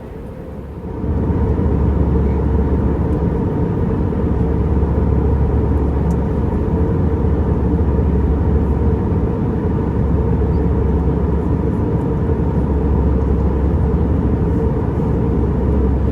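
Steady in-flight cabin noise of an Airbus A320 at cruise: a low engine and airflow rumble with a faint steady hum on top, stepping up louder about a second in.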